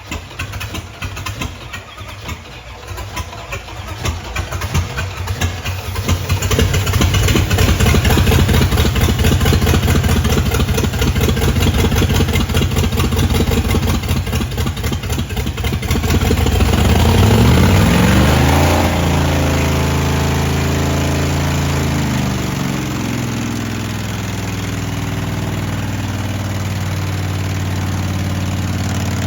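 Ram pickup engine running on whole milk and cereal in place of oil, with a fast, even clatter. About 17 seconds in it revs up and comes back down, then settles into a steadier, quieter running note.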